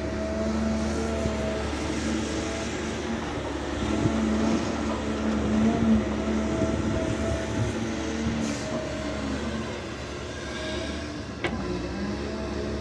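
Caterpillar 320 Next Gen excavator's diesel engine running steadily under working load, swelling louder around the middle, with one sharp knock near the end.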